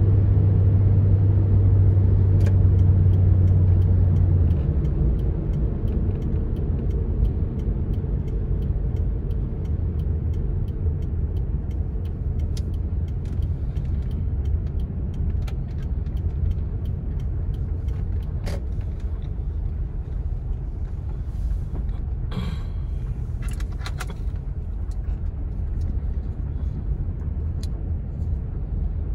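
A car driving on a wet road: a steady low engine and tyre rumble that drops noticeably a few seconds in as the car slows, with scattered light ticks.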